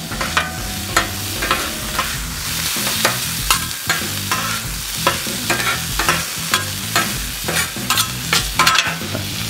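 Metal spatula clacking and scraping on a Blackstone flat-top griddle, about two strikes a second, as it chops and mixes onions into shaved ribeye. Underneath is the steady sizzle of the meat and onions frying on the hot steel.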